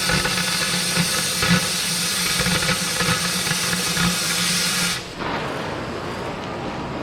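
Cutting torch hissing steadily as it cuts through the steel core barrel pipe, then shut off suddenly about five seconds in.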